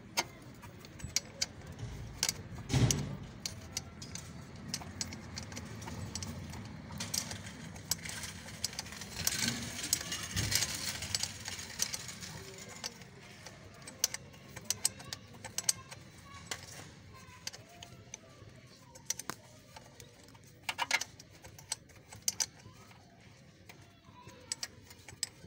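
Irregular metallic clicks and clinks of a spanner working at the clutch slave cylinder on a Mercedes-Benz 250's gearbox bell housing, with a louder knock about three seconds in.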